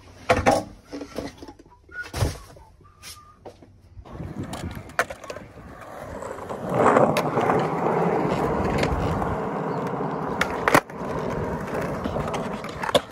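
Skateboard wheels rolling on a concrete skatepark surface: a steady rolling noise that grows louder about halfway through. Sharp clacks of the board come twice near the end, and a couple of knocks come in the first seconds.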